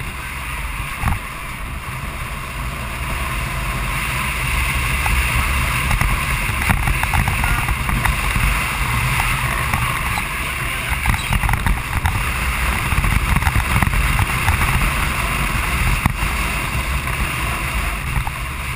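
A carrilana, an unpowered gravity kart, speeding downhill on asphalt: steady rushing wind and tyre rumble, with scattered knocks and clicks from the chassis over the road surface. There is no engine.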